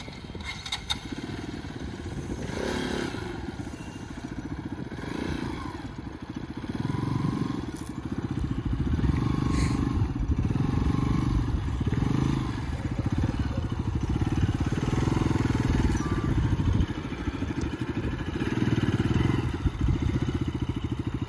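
Bajaj Pulsar RS200's single-cylinder engine running under way, its note rising and falling again and again as the throttle is opened and closed.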